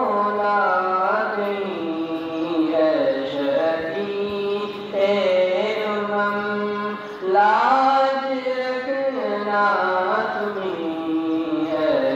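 A devotional salaam chanted in a slow melody, the voice holding long notes that rise and fall without a break.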